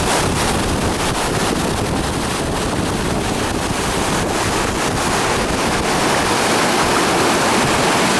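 Waterfall: a steady, loud noise of falling water, with wind buffeting the microphone.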